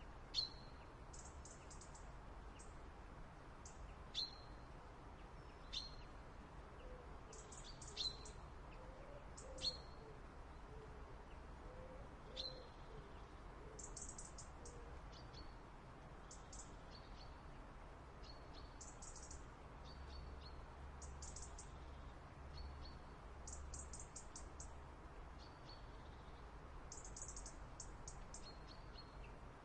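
Small backyard songbirds calling faintly: sharp single chirps every second or two in the first half, and quick runs of very high twittering notes throughout.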